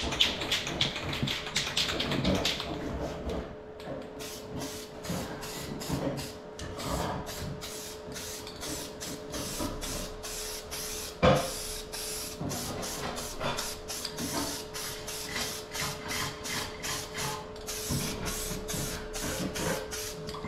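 Aerosol spray can of primer being sprayed onto a cast-iron intake manifold in short, quick bursts, about three a second, over a steady faint hum. One sharp knock about eleven seconds in.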